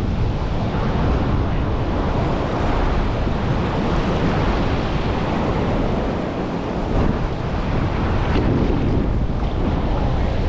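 Surf breaking and rushing on the beach, with gale-force wind buffeting the microphone in a steady, loud roar of noise.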